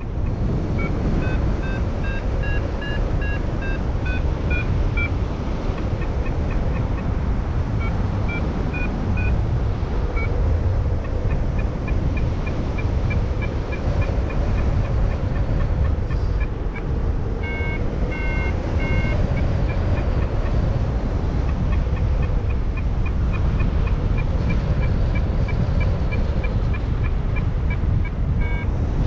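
Wind rushing over the microphone, with a paragliding variometer (XC Tracer Maxx) sounding a run of short beeps whose pitch rises and falls and which at times speed up to about four a second. That is the vario's climb tone, signalling that the glider is rising in lift.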